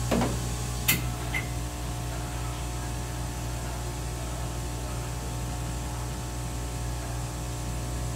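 Localized cryotherapy machine running steadily, blowing cold air through its hose and handheld nozzle onto the neck: a continuous hum with a hiss of air. A single sharp click about a second in.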